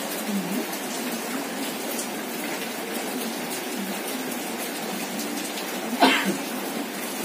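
Steady rushing noise throughout. About six seconds in there is a short, loud burst of a woman's voice.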